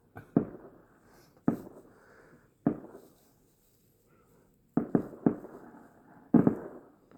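Distant fireworks going off: about eight sharp booms at uneven intervals, each trailing off briefly, with a quick cluster of three a little after the middle.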